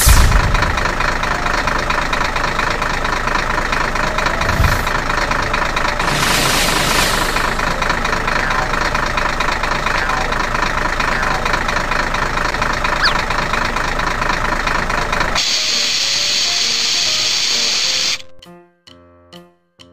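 Animated monster truck sound effects over background music. A loud explosion bang comes at the start and a second bang about five seconds in, then a steady truck engine runs. About fifteen seconds in the engine drops out for a high hiss, and near the end a string of short musical notes plays.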